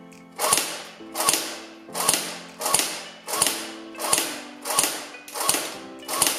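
Cybergun FN Herstal P90 airsoft electric gun firing about nine evenly spaced single shots through a chronograph, each a short mechanical crack of the version 6 gearbox cycling. It is fitted with its softer spare spring and is reading about 315 FPS. Background music plays underneath.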